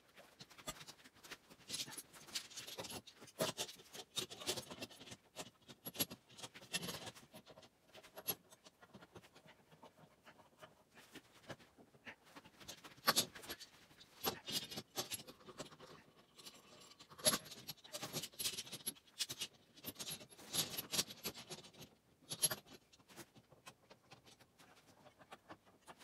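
Steel bar clamps being laid across and fitted to a glued pine bed headboard on a concrete floor: irregular metal clanks, knocks and scraping as the clamps are positioned and tightened.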